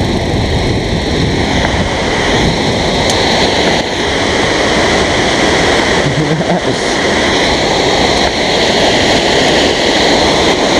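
Steady rushing noise of a bicycle ride, wind and tyre noise on the bike-mounted camera's microphone, blending with water pouring over a river weir, growing slightly louder toward the end.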